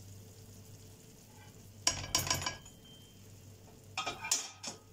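Spatula scraping and knocking against a granite-coated frying pan while cooked egg and tomato is scooped onto a plate, in two short bursts: about two seconds in and again about four seconds in. A faint steady low hum lies underneath.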